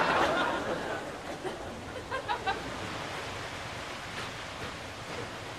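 Pool water splashing, the tail of a big splash dying away in the first second into a steady wash of churning, lapping water. A few short high blips come about two seconds in.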